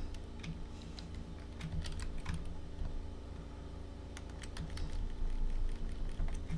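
Typing on a computer keyboard: irregular key clicks, coming in quick runs with short pauses, over a low steady hum.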